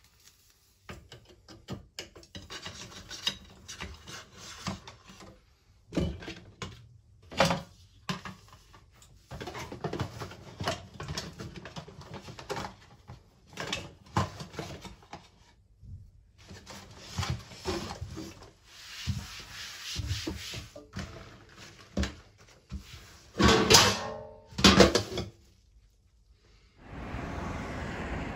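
Kitchenware being packed into a wooden crate: a metal colander, bowls, glass jars and utensils knock and clatter as they are set in, with rustling in between, and two loud ringing clanks near the end. In the last second or so, wind buffets the microphone outdoors.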